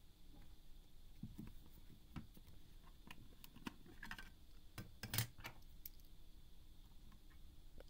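Faint handling noises from a plastic digital multimeter: scattered light clicks and knocks as it is turned over and its battery cover comes off, with the loudest clatter about five seconds in.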